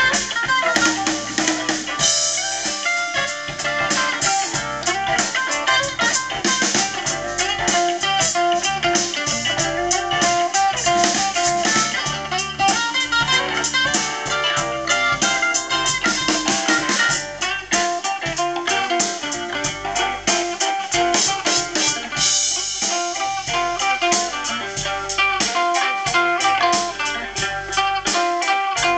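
Blues band playing an instrumental stretch: fast plucked-string lead lines over drum kit and bass, with no singing.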